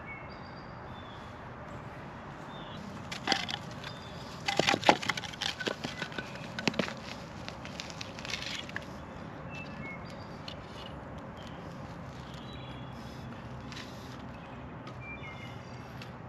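Split firewood logs knocked and set down against each other and the stones of a campfire ring: a run of hollow wooden knocks and clacks starting a few seconds in and lasting several seconds.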